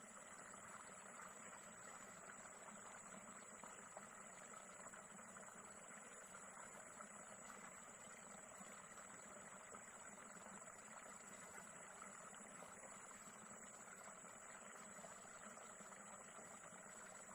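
Near silence: faint, steady background hiss with a thin high whine throughout, and no distinct events.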